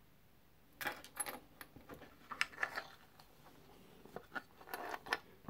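Small metal lock pins clicking and rattling as they are handled and set into a wooden pinning tray, in a string of short, irregular clinks that begins about a second in.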